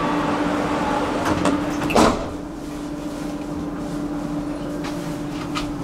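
Metro train with a steady hum; its sliding doors shut with a single loud thud about two seconds in, after which the noise settles lower.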